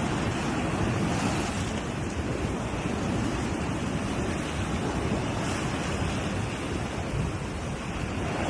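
Ocean surf washing steadily against a rocky shore, with wind buffeting the microphone.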